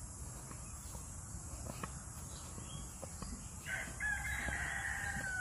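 A rooster crows once, starting about three and a half seconds in: one long call that falls slightly at its end. A steady drone of insects runs underneath.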